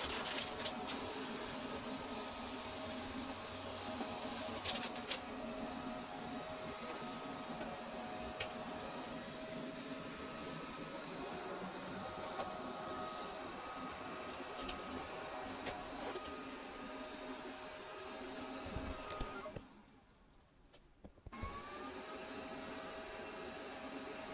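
Neato XV11 / Vorwerk VR100 robot vacuum running: a steady motor hum with a high whine, a few clicks and knocks in the first five seconds. The sound cuts out for about two seconds near the end, then resumes.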